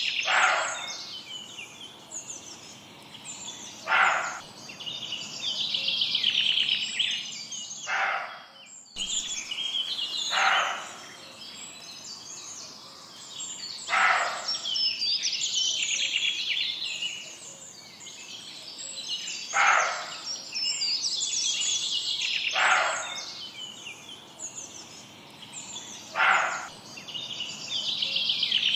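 Bird chorus: many birds chirping and twittering, with a louder, lower call repeating every few seconds.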